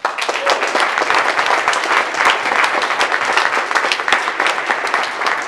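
Audience applauding, breaking out suddenly as a dense, loud patter of many hands clapping.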